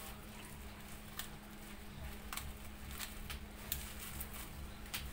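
Scissors snipping and plastic packaging crinkling as a parcel is cut open: a few scattered sharp clicks at irregular intervals over a steady low hum.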